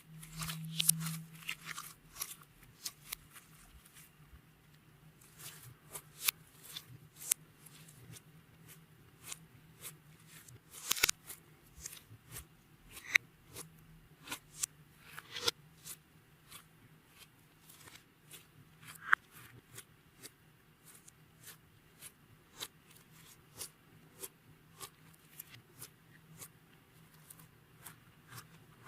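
Hands kneading and stretching clear slime, making irregular sticky clicks and crackling pops, with a few sharper snaps around the middle.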